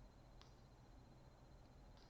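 Near silence between snores: room tone with one faint click about half a second in.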